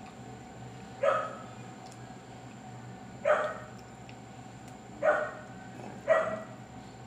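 Dog barking: four single barks, one to two seconds apart.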